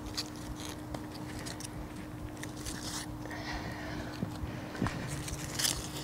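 Gloved hands rummaging and digging through loose garden soil in a potato bed, with irregular crunches, scrapes and soft knocks. A faint steady hum sits underneath.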